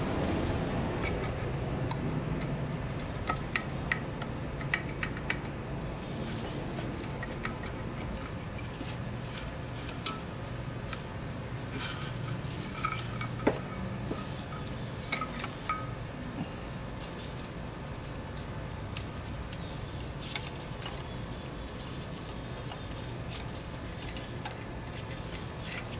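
Light metallic clinks and taps of bolts, tools and engine parts as the cylinder head of a 2006 Yamaha YFZ450 engine is unbolted and lifted off. Under them runs a steady low drone of aircraft overhead.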